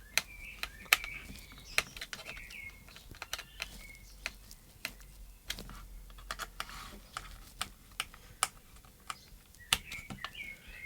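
Small screwdriver clicking and scraping against screws being driven into a plastic transmitter case, with irregular sharp clicks of varying loudness.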